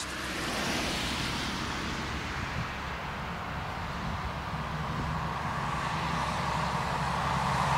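Steady rushing background noise with a low hum underneath, a mid-pitched band growing a little stronger toward the end.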